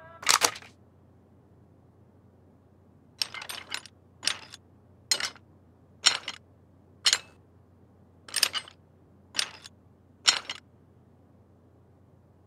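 Slide projector advancing through slides: a sharp click just after the start, then about nine clunky, often doubled clicks roughly a second apart.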